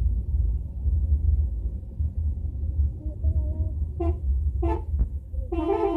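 Telolet bus horn, a multi-trumpet air horn that plays a tune: two short toots about four seconds in, then a longer chord of several tones near the end. A low rumble from the coach's engine and the road runs underneath.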